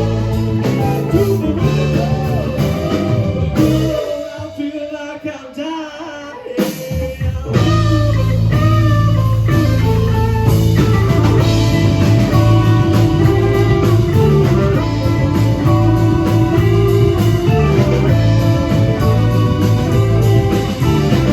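Live blues-rock band playing, with electric guitar, drums, bass and singing. About four seconds in the bass and drums drop out for a couple of seconds, leaving guitar and voice, and the full band comes back in about seven seconds in.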